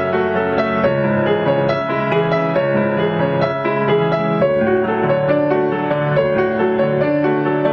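Recorded solo piano piece playing: a flowing stream of notes over held low bass notes, at a steady level.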